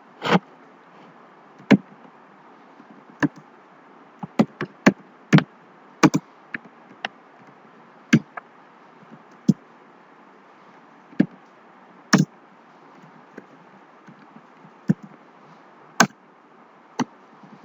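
Slow, irregular keystrokes on a computer keyboard, single sharp clicks a fraction of a second to more than a second apart, over a faint steady hiss.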